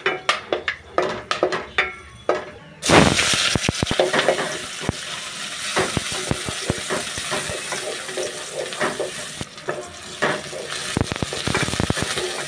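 Bay leaves and whole spices crackling in hot oil in an aluminium pot. About three seconds in comes a sudden loud sizzle as sliced onions go into the oil, and they keep frying with a spatula stirring and scraping against the pot.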